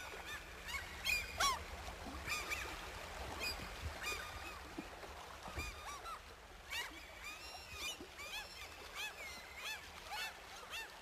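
Waterfowl calling: many short, arching calls, some overlapping, coming thick and fast near the start and again in the second half, over a faint low steady hum.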